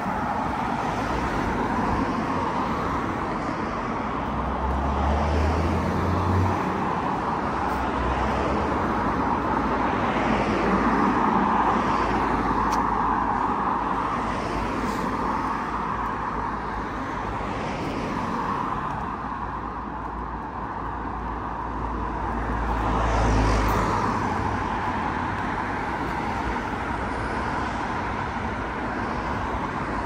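Road traffic noise: cars on tarmac, a continuous hum of tyres and engines that swells as vehicles pass about 6, 11 and 23 seconds in.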